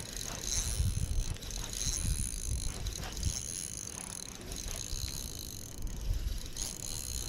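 Fishing reel being cranked, a quick clicking whir that comes and goes as line is retrieved, over a low rumbling noise.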